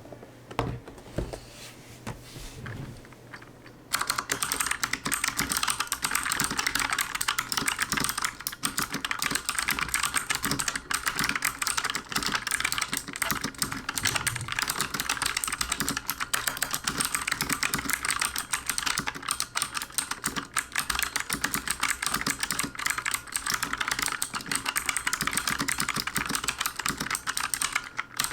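Rapid typing on a Bloody B820R mechanical keyboard with LK Optic Blue switches: a dense run of sharp, clicky keystrokes that starts abruptly about four seconds in, after a few quieter knocks. The switches are tinny and clangy compared with Cherry MX Blues.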